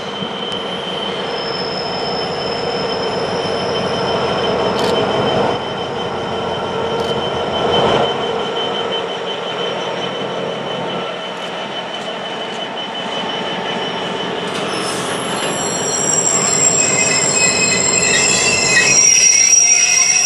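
GB Railfreight Class 66 diesel locomotive and its train of container wagons passing at close range, a steady rolling noise with a few held tones. High-pitched wheel squeal joins in about fifteen seconds in and carries on as the wagons go by.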